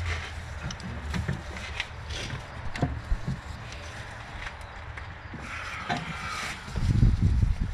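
Scattered small clicks, knocks and rubbing as engine parts are handled, with heavy low thumps near the end.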